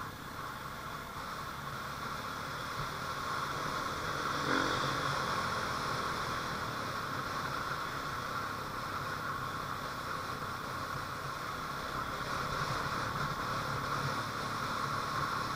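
Motorcycle engine running steadily while riding along a concrete road, mixed with wind and tyre noise.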